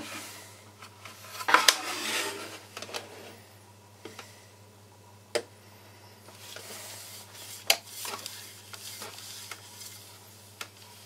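A framed mirror being handled: a few sharp knocks and taps, the loudest about one and a half seconds in, with softer rubbing and scraping of fingers and palm on the glass, over a steady low hum.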